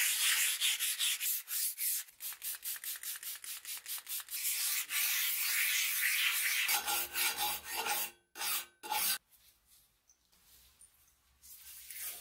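Scouring pad scrubbed back and forth over the metal of an old frying pan coated in cleanser, in quick rhythmic strokes of about four a second that blend into a steadier hiss. After about nine seconds the scrubbing turns much quieter.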